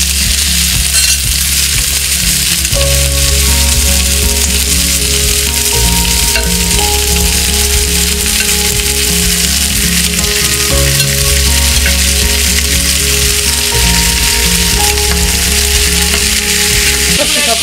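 Onions and raw chicken pieces sizzling steadily as they fry in hot oil in a pan.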